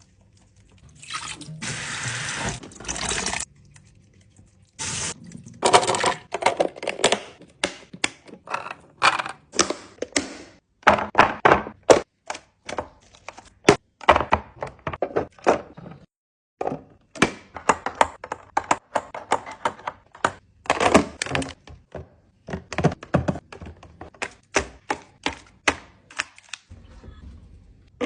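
Irregular knocks, taps and clunks of containers and food items being handled and set down on fridge shelves, with a stretch of rushing noise lasting about two seconds near the start.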